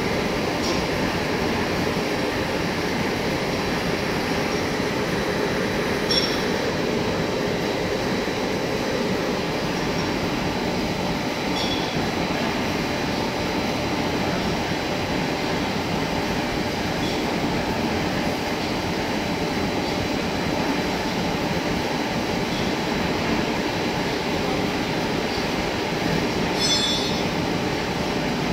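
Vertical lathe turning a large steel ring: the steady noise of the rotating table and the tool cutting steel, with a few brief metallic clinks.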